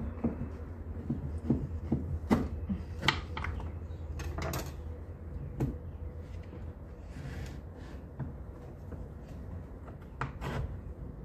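Kitchen knife chopping and breaking a block of raw cacao on a wooden cutting board: irregular knocks of the blade against the board and scraping of the knife through the cacao, a run of them in the first half and a few more near the end. A steady low hum runs underneath.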